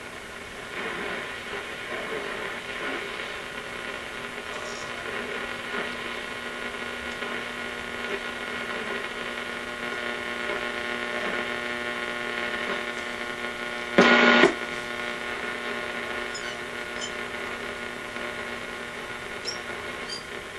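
Hallicrafters S38E shortwave receiver's speaker putting out hum and hiss with several steady tones and no station speech. About 14 seconds in comes a loud burst of noise lasting about half a second, and a few faint clicks follow near the end.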